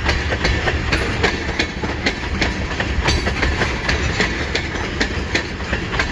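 Mixed freight train rolling past slowly as it pulls away, its wheels clacking over rail joints about three times a second over a low rumble.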